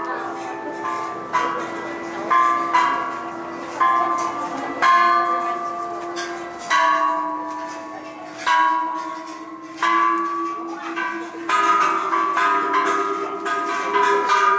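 Bell-like chimes played as a slow melody, each struck note ringing and fading, roughly every one to two seconds. They sound over a held lower note that changes pitch twice.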